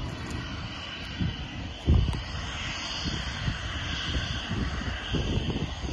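Dassault Falcon 2000EX business jet taxiing at a distance, its twin turbofans giving a steady whine and hiss over an uneven low rumble, with a single thump about two seconds in.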